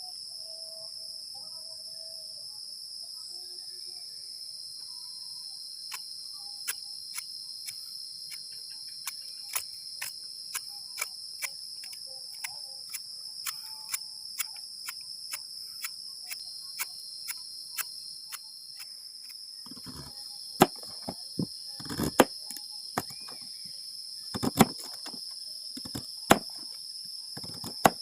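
A steady, high-pitched chorus of crickets and other insects. About six seconds in, a run of sharp clicks starts at roughly two a second, and in the last third they give way to louder, irregular knocks.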